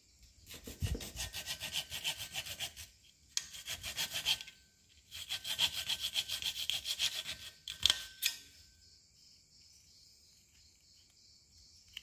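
Hacksaw blade cutting lengthwise through a short piece of PVC pipe to split it in half, in quick back-and-forth rasping strokes. The sawing comes in three runs with brief pauses between them, ends with a couple of sharp knocks about two-thirds of the way through, and then stops.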